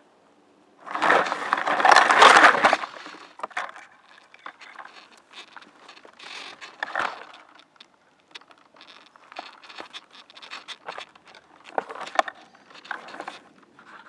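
Loud crackling rustle of leaves and twigs for about two seconds, then scattered scrapes and clicks: a small camera drone caught in a tree's branches and dropping into the grass and twigs below.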